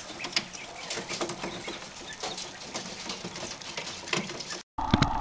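Young quail in a brooder, a scatter of soft chirps and quick taps from the birds moving and pecking on the wire floor and feeders. Near the end the sound cuts off and a louder steady hum begins.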